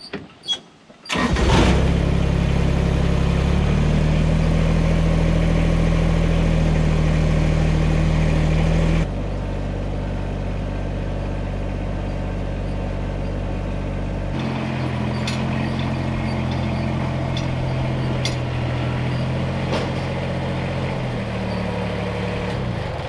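Compact tractor engine starting up about a second in, then running steadily at raised throttle as the tractor drives, with a lower pitch near the end as it throttles down.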